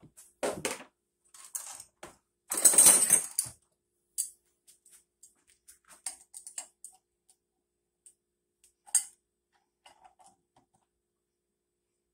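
Metal clanks and clicks of a wrench and flywheel puller being handled on an outboard motor's flywheel. There is a short clank about half a second in and a louder clatter lasting about a second from two and a half seconds in, then scattered light ticks and a sharp click around nine seconds.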